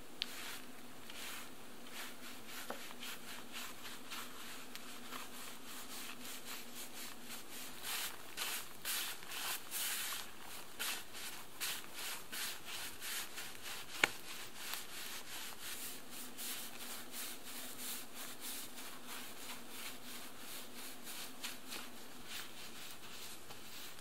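Bark spud scraping bark off a log in repeated pushing strokes, loudest through the middle; a single sharp knock a little past halfway.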